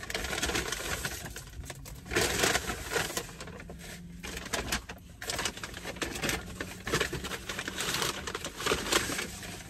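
Paper takeout bag crinkling and rustling in repeated bursts as hands dig through it and pull out paper-wrapped food.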